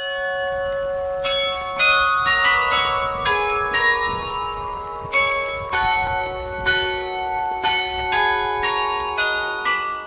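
Church bells ringing: a run of single strikes at different pitches, roughly two a second, each tone ringing on under the next.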